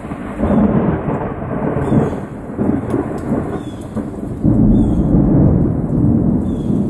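Thunder rumbling from a thunderstorm that is moving away, over steady rain. The rumble swells about half a second in and again more sharply about four and a half seconds in.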